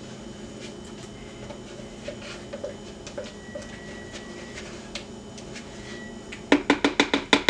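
Faint kitchen handling sounds, then, about six and a half seconds in, a run of quick loud wet smacks, about eight a second for about a second: a small dog licking yogurt off a plastic spatula.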